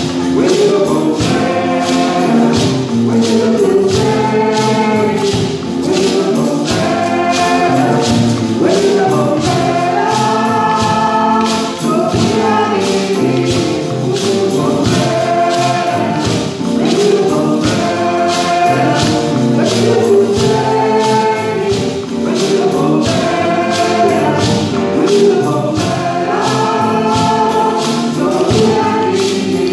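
Live music with voices singing over a steady beat from hand drums, a drum kit and a gourd shaker.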